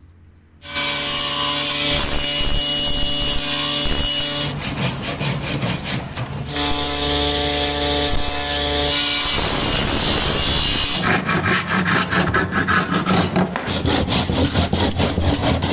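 Electric jointer-planer running steadily as a strip of wood is fed across its cutter block, starting about a second in. Near the end it gives way to a handsaw cutting into the toe of a cricket bat with quick, regular back-and-forth strokes.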